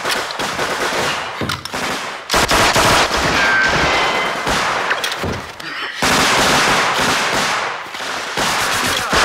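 Firefight in a war-film sound mix: rapid machine-gun bursts mixed with rifle shots, loud throughout, growing denser and louder a little past two seconds in and again at about six seconds.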